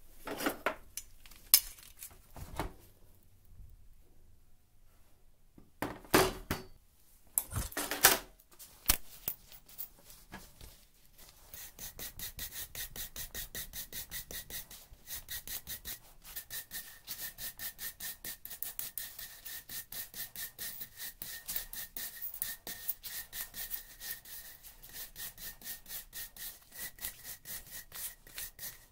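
A few loud clanks and knocks as scrap metal and wood are handled, then a chainsaw chain on a tile floor being scrubbed with a wire brush: quick, even scratchy strokes, about three a second, for most of the rest.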